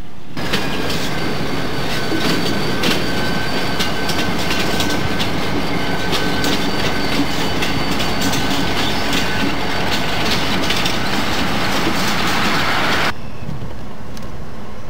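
Freight train passing close: wheels clacking over rail joints, with a thin steady wheel squeal above the rumble. It cuts off suddenly about 13 seconds in, leaving a quieter steady noise.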